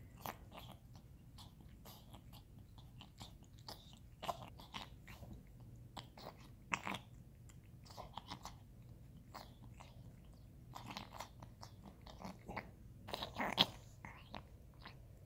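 A domestic cat licking a man's bearded face: irregular wet smacks and rasps of its tongue, a cluster of louder ones near the end.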